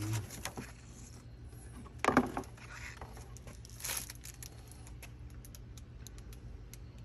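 Light clicks and rustling of head-unit wiring cables and bagged accessories being handled, with a louder rustle about two seconds in and a quick run of small ticks later on.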